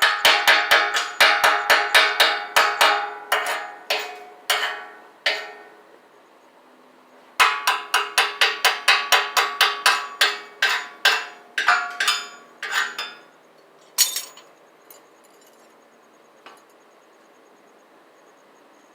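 Hammer striking a welded steel frame, the steel ringing with each blow: two runs of quick, even blows about three a second, then one last strike.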